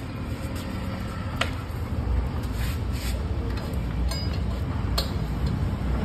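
A few light clicks and knocks from a motorcycle rear wheel and chain being worked out of the swingarm, over a steady low rumble.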